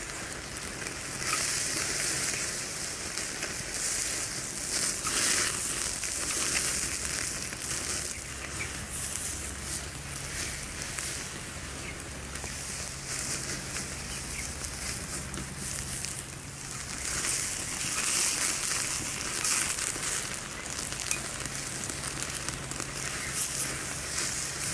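Steak sizzling on a wire grill rack over a smoky wood fire, with the fire crackling in small pops.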